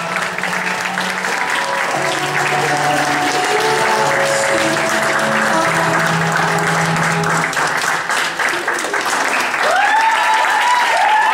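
Audience clapping steadily over the routine's music, with held music notes underneath for most of it. Near the end a few people whoop and cheer.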